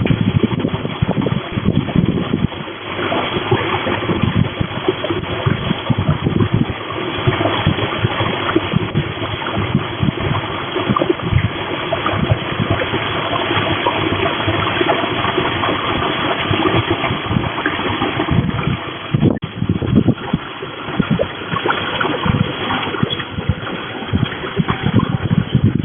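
Storm wind: a loud, steady rushing noise with gusts buffeting the microphone.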